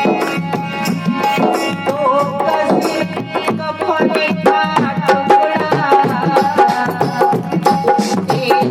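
Instrumental interlude of Indian devotional music: tabla playing a steady rhythm under a melodic instrument playing gliding phrases.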